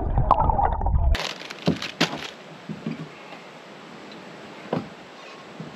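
Muffled, churning water sound heard through a submerged camera, which cuts off abruptly about a second in. Then a few scattered sharp clicks and crackles of fishing tackle being handled at a kayak, over a faint hiss.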